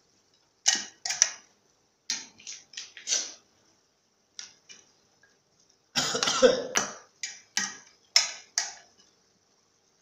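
Metal spatula scraping and knocking against a stainless-steel pan while stirring minced chicken, in short separate strokes, with a louder burst of sound about six seconds in.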